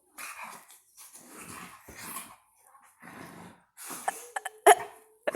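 A dog making a run of short rough noises, roughly one a second, then a few sharp, loud sounds with a brief tone about four seconds in.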